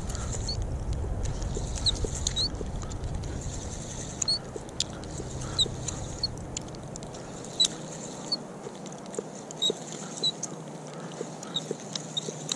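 Small birds chirping, with scattered short high calls, and a few light clicks over a low wind rumble on the microphone that dies away about halfway through.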